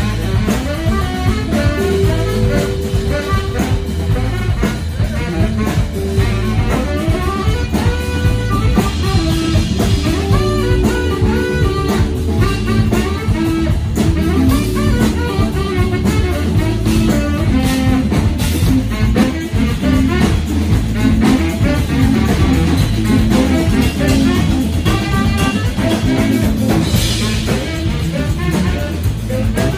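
A live band playing: a tenor saxophone over electric guitars, bass guitar and drums, with a steady beat.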